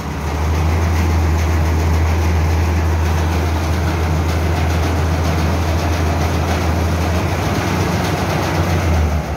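Tractor-driven maize sheller turning over on a Massey Ferguson tractor's PTO shaft, running empty with no maize fed in, to clear out the machine before threshing: a loud, steady low hum under an even rushing noise. The sound stops shortly before the end.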